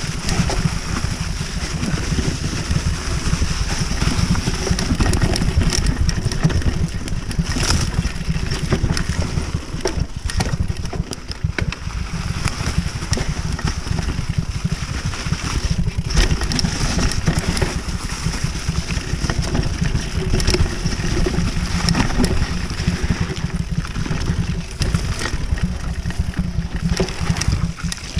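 Mountain bike riding fast down a dirt forest trail: a constant wind rumble on the microphone, with the tyres rolling over leaves and dirt and the bike rattling and knocking over bumps.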